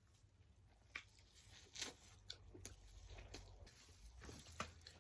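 Quiet close-up eating sounds: a person chewing, with a handful of short wet clicks and smacks from the mouth.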